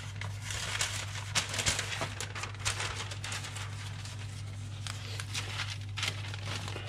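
Newspaper rustling and crinkling as sheets are handled and unfolded, in irregular bursts that are busiest in the first few seconds and again near the end. A steady low hum runs underneath.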